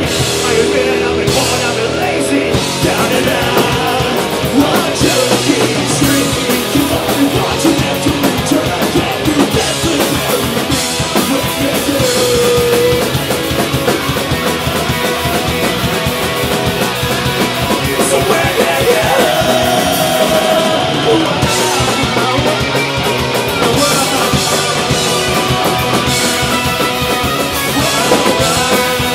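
Punk rock band playing live: distorted electric guitars, bass and a fast-hit drum kit, with shouted vocals.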